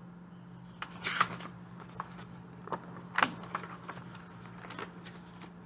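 Paper pattern booklets and packaging being handled: scattered rustles and crinkles with sharp clicks, the loudest about three seconds in, over a faint steady hum.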